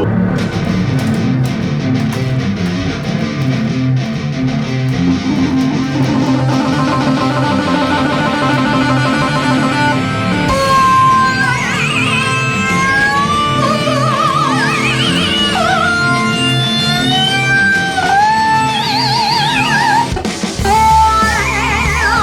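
Rock band music with heavy, distorted chords. About halfway through, a high lead melody comes in, with pitch bends and wide vibrato.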